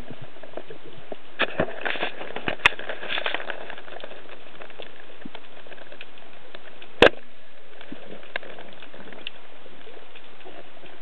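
Underwater sound picked up by a diver's camera: a steady hiss with scattered crackles and clicks, most of them in the first few seconds, and one sharp click about seven seconds in.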